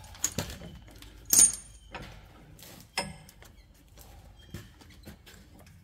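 Metal clinks and taps of steel U-bolts and bracket hardware being handled and fitted onto a tie rod. The loudest, ringing clink comes about a second and a half in, with another about three seconds in.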